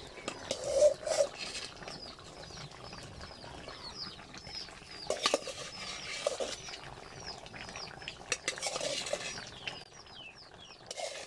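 A metal ladle stirring and knocking against an iron karahi of simmering curry, with a handful of sharp clinks scattered through, loudest about a second in. A steady train of short high chirps runs underneath.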